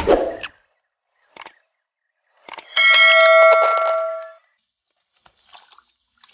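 Subscribe-button notification sound effect: a couple of quick clicks, then a bright bell ding with several steady pitches that rings for about a second and a half before fading. A short swish ends just after the start.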